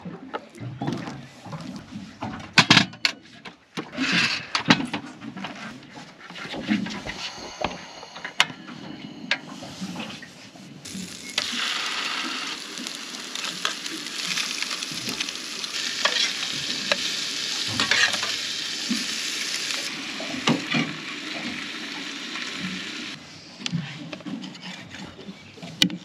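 Snapper fillets frying in butter in a pan. A steady sizzle runs from about eleven seconds in until a few seconds before the end, with the knocks and clicks of utensils and pan handling before and after it.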